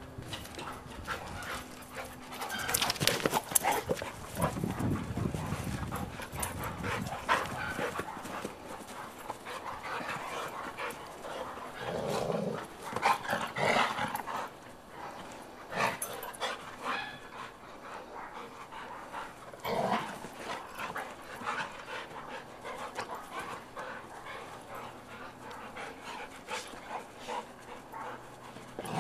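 Two golden retrievers play-fighting, making irregular bursts of dog noise with panting, loudest about three seconds in and again around the middle.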